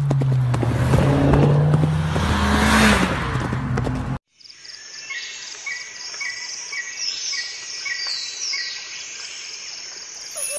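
Race car engine sound effect revving, with tyre noise, cut off abruptly about four seconds in. Then birds chirping: a short chirp repeating about twice a second, with higher falling whistles above it.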